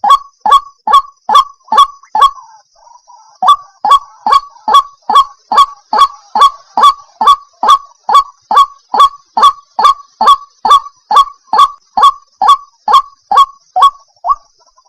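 White-breasted waterhen (ruak-ruak) calling: a fast, even run of short, harsh downward-sliding notes, about two and a half a second. The run breaks off for about a second just after the start, then carries on steadily.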